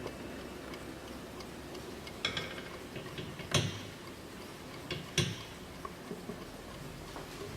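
Warmink Dutch mantel clock ticking, with a few sharper knocks, one of them followed by a brief metallic ring.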